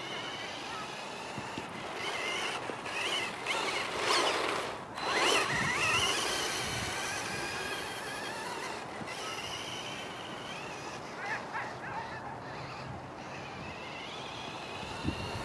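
Kyosho Ultima 2WD electric RC buggy running on a dirt track, its motor whine rising and falling in pitch as it accelerates and slows. The sound is louder about four to six seconds in.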